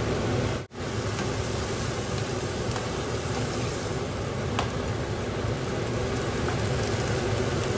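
Chicken pieces and onions sizzling in hot oil in a nonstick frying pan: a steady frying hiss that breaks off for an instant just under a second in.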